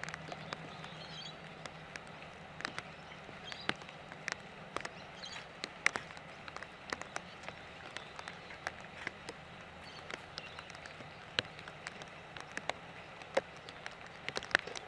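Quiet outdoor ambience with scattered, irregular sharp ticks and taps, a few faint high chirps, and a low steady hum that fades out in the first few seconds.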